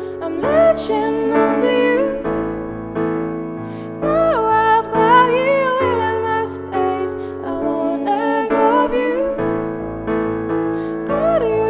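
Music with no words: keyboard chords, piano or electric piano, changing every second or so, under a sliding, bending melody line.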